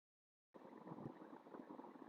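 Near silence: a half-second of dead silence, then faint room tone with light crackle.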